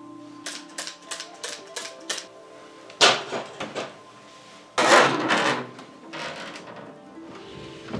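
Soft background music, with a run of light clicks in the first two seconds. Then come two loud clattering scrapes of wooden boards, about three and five seconds in, as the wooden lid of a large wooden storage box is handled and laid back on.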